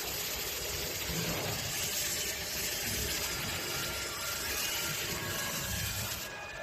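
Large gantry fiber laser engraving machine at work: a steady hiss with an uneven low rumble under it, easing slightly near the end.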